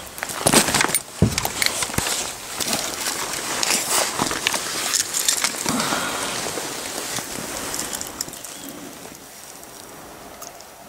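Close handling noise as a deeply hooked asp is worked free of the lure: rustling and sharp clicks, busiest in the first couple of seconds and dying down after about eight seconds.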